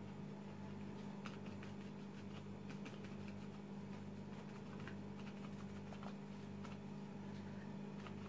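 A crumpled paper napkin dabbed against a gouache painting on paper to stipple on white paint, making faint light taps at irregular intervals over a steady low hum.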